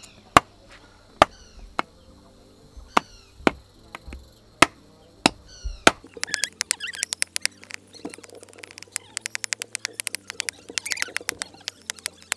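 A heavy knife chopping a forked green stick on a wooden block: about nine separate sharp chops in the first half, then a fast run of quick light cuts as the wood is trimmed and whittled into a slingshot frame. A bird chirps briefly between the early chops.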